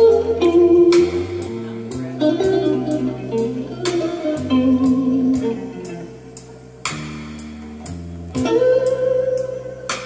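Music from a television commercial playing into the room: a tune over a bass line with a steady beat.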